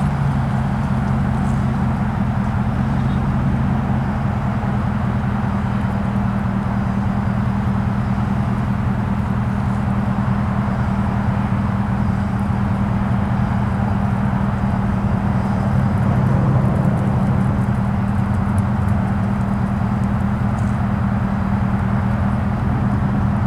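Diesel locomotive engines running at a steady pitch, with a constant low hum.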